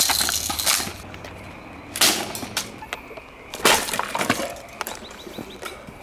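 Vintage table fan being smashed against the ground: three crashes about two seconds apart, each followed by a clatter of breaking parts.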